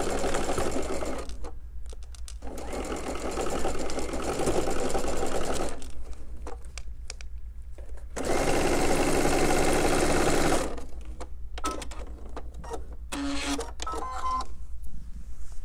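Sewing machine stitching a quarter-inch seam on quilt fabric in three runs of fast, even stitching with short stops between them. Scattered clicks and handling sounds follow near the end.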